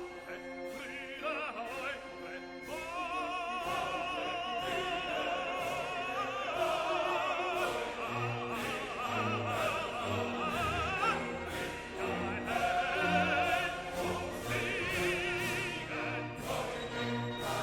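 Background music: operatic singing with strong vibrato over an orchestra.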